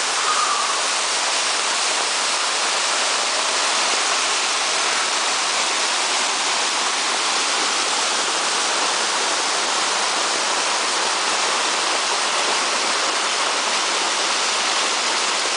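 A 50 ft waterfall in full flow after heavy rain, its water rushing in a steady, even roar with no let-up.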